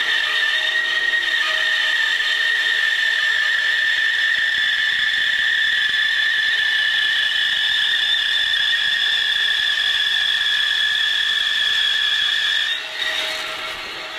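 Bandsaw with a 1/4-inch blade running through a cabriole leg blank, giving a steady high whine that sinks very slightly in pitch as it cuts. The whine drops away about a second and a half before the end.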